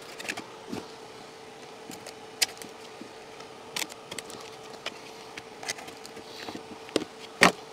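Utility knife cutting through a stiff fiberboard insulating sheet: scattered short scratches and clicks, with one sharper snap near the end, over a faint steady hum.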